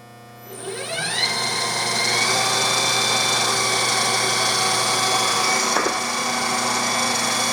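Jet 20-inch electronic variable speed drill press switched on in its high speed range: the motor and spindle spin up with a rising whine over about a second, then run at a steady speed with an even whine. It runs smoothly, in the words of the seller, "sounds nice".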